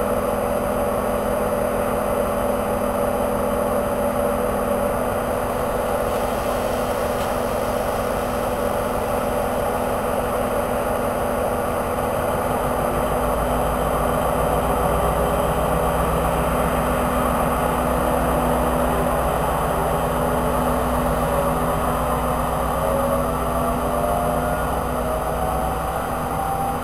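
DB class 294 diesel-hydraulic shunting locomotive running at low speed, its engine note steady, growing heavier about halfway through, with a rising whine near the end.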